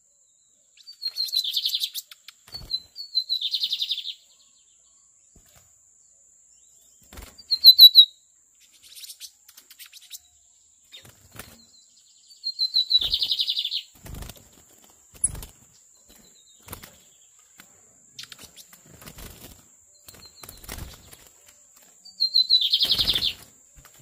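Caged lined seedeater (bigodinho) singing short, rapid trilled phrases, five times with pauses between. Between the phrases come light taps and wing flutters as it moves about the cage.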